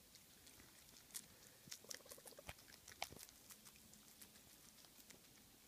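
Faint, irregular crisp clicks of a guinea pig chewing a green leaf, busiest in the middle, with a short buzzing rattle about two seconds in.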